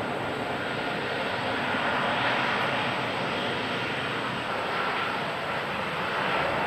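Boeing 787-9 airliner's jet engines at takeoff thrust during the takeoff run: a steady rushing noise that holds at an even level.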